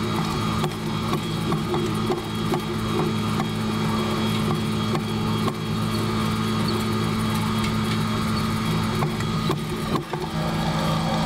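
John Deere 7710 tractor's six-cylinder diesel engine running at a steady speed, with faint regular clicks about twice a second.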